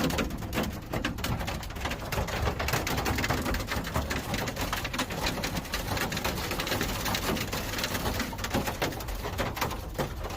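Heavy rain, many drops pattering in quick succession close to the microphone, over a steady low rumble.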